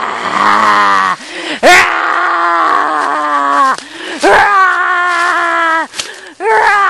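A person screaming in fright, a run of long held screams of one to two seconds each with short breaks between them.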